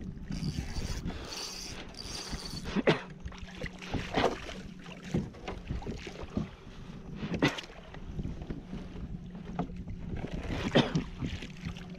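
Water sloshing and splashing with wind on the microphone; a few sharper splashes stand out, about three, four, seven and eleven seconds in.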